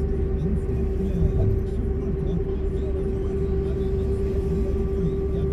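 Steady low rumble of road and engine noise heard from inside a moving vehicle at cruising speed, with a constant droning tone over it.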